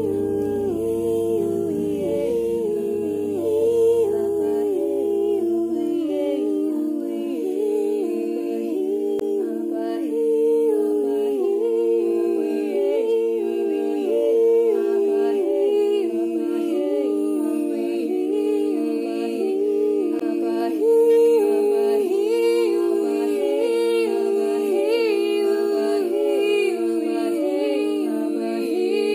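A group of voices humming and singing a capella in several overlapping parts, the notes stepping up and down in a repeating pattern. A low drone underneath dies away within the first several seconds.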